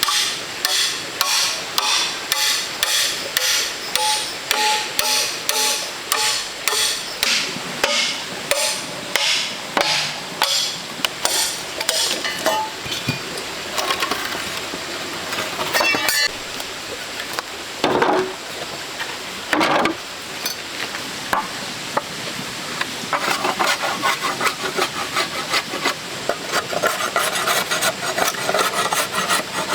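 Hand-tool work: repeated striking strokes at about two a second, breaking into scattered knocks about halfway through, then a stretch of rubbing and scraping near the end.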